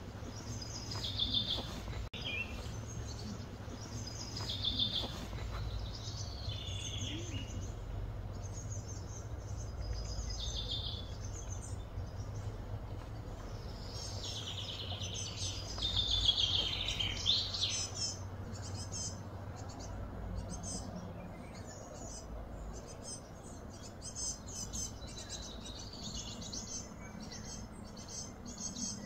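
Birds chirping and singing in short, repeated phrases, with a louder run of calls a little past halfway and quicker, fainter high chirps later on, over a steady low hum.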